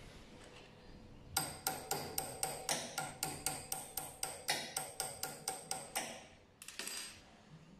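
Rapid, regular metallic clicking, about four or five clicks a second with a faint ringing, from a hex key working the set screw in the metal hub of an ultrasonic sewing machine's roller; it stops about six seconds in, with two more clicks shortly after.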